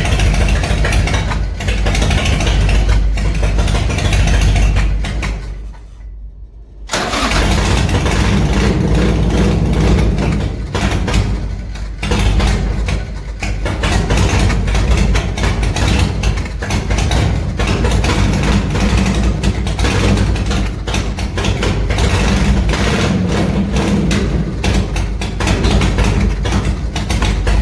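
Harley-Davidson V-twin motorcycle engine running, with a loud low rumble. The sound drops out sharply about six seconds in and comes back a second later.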